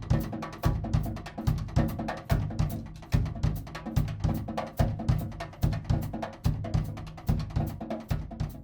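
Drum kit played in a solo: a busy pattern of bass drum, snare and cymbal strikes, several hits a second with strong low kick thumps.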